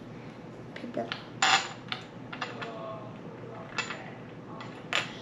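Small empty glass vials clinking against each other and being tapped and set down on a tabletop: a scatter of sharp clicks and taps, the loudest about one and a half seconds in.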